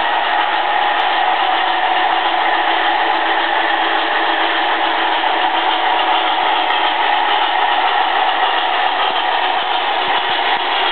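HO scale model train running along the track, a steady whirring noise from the locomotives' motors and the wheels rolling on the rails.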